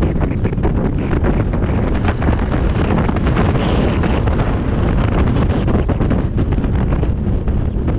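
Heavy wind buffeting the microphone of a rider on the move: a steady low rumble that runs without a break.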